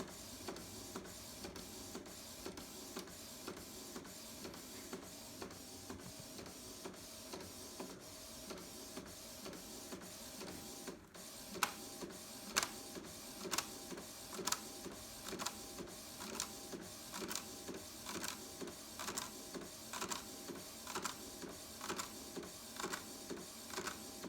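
Canon Pixma iX6850 inkjet printer printing, its print head carriage shuttling back and forth with a steady whir and regular clicks. About halfway through it pauses briefly, then the clicks come louder, about one a second.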